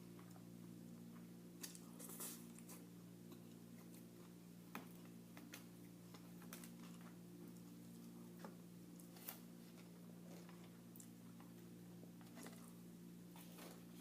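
Faint eating sounds: scattered soft clicks and crackles of chewing and handling takeout food, a few every couple of seconds, over a steady low hum.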